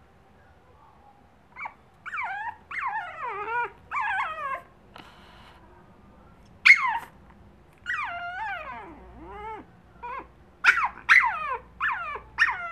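Pug puppy crying: bouts of high-pitched whimpering whines that slide down in pitch, ending in a few short, sharp yelps.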